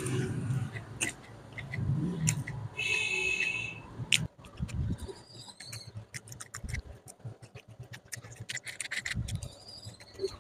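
Close-miked eating sounds: fingers scraping and picking rice off a plastic plate, then chewing and lip smacks as many short wet clicks. A brief high whistle-like tone sounds about three seconds in.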